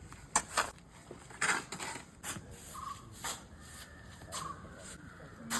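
Cement mortar being mixed by hand, a tool scraping and turning through the wet mix in short, irregular strokes.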